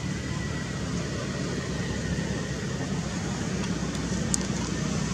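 Steady low rumble with a hiss above it, like distant road traffic, and a faint click about four seconds in.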